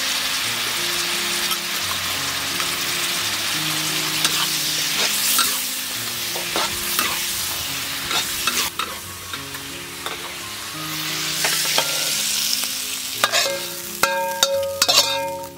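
Food sizzling as it fries in a hot pan, with a spatula scraping and stirring through it in repeated strokes. Near the end, a few metallic clinks ring out.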